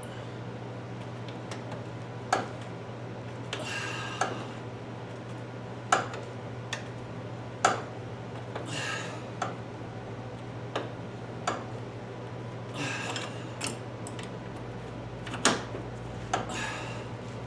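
Scattered sharp metallic clinks and taps of hand tools on metal, with a few short rasping noises every four or five seconds, over a steady low hum.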